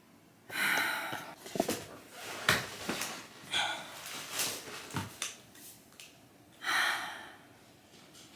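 A person sighing heavily twice in exasperation, with several knocks and handling noises in between.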